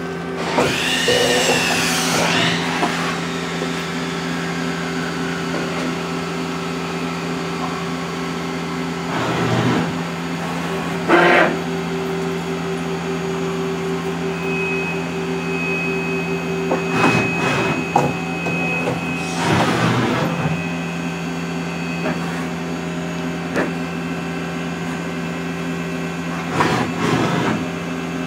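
Mazak SQR-200 CNC lathe running a turning program: a steady machine hum, with louder rushes of noise a second or so long about five times, and a thin high whine through the middle.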